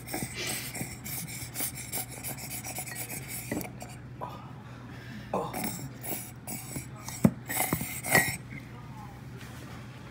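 Rustling, scraping and small clicks from containers and ingredients being handled at a kitchen counter, with a few sharper knocks about seven and eight seconds in.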